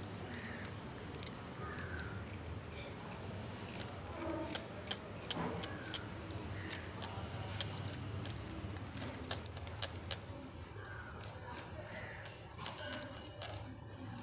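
A small knife blade scraping scales off a fish, an irregular run of quick sharp clicks and scratches, busiest in the middle.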